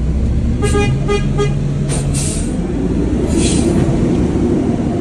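A horn beeping four quick short toots about a second in, over a truck engine running steadily, followed by two short bursts of hissing.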